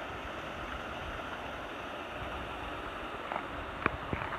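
Steady rush of flowing water at a dam, with a few sharp footsteps of flat shoes on concrete near the end.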